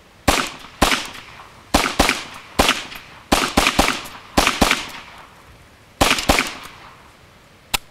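About a dozen gunshots from a Ruger Charger .22LR semi-automatic pistol, fired singly and in quick pairs and a triple, each sharp crack trailing off over about half a second. A shorter, sharper click near the end.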